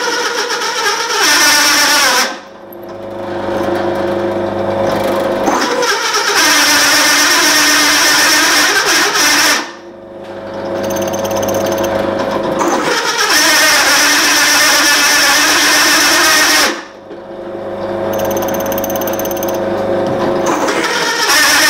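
Bench drill press driving a hole saw through a steel bracket, with a loud, screechy grinding of the teeth cutting metal over the motor's hum. Three times the cutting noise breaks off suddenly, leaving the motor running free, then builds back up as the saw bites into the steel again.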